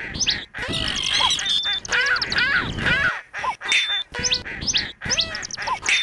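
A collage of many different bird calls layered together: short chirps and whistles, rising and falling, with lower calls underneath. The calls are spliced with abrupt cuts and the same ones recur every couple of seconds, as in an edited soundtrack.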